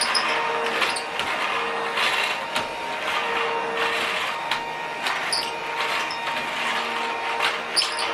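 Children's battery-powered toy vacuum cleaner running: a steady motor whine, with a second, lower tone cutting in and out over a rattling, noisy hum.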